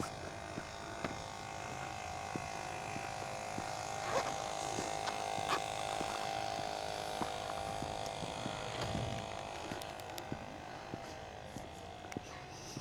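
A steady electrical hum with several even tones, with scattered faint ticks and clicks over it.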